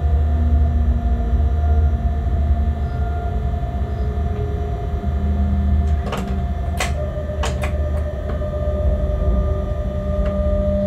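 Locomotive running light, heard from inside the cab: a steady low drone with a steady whine over it. Several sharp clicks or knocks come between about six and eight seconds in.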